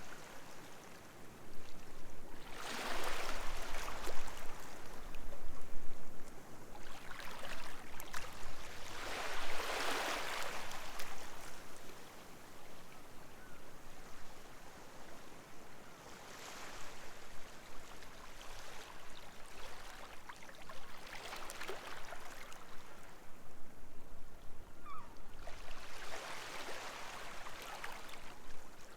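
Small sea waves washing up a beach and drawing back, about five surges that each swell into a broad hiss and fade, the first two the loudest.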